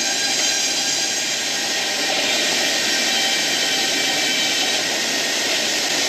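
Sawmill edger running as a board feeds through it: a loud, steady machine noise with a few faint, steady high whines.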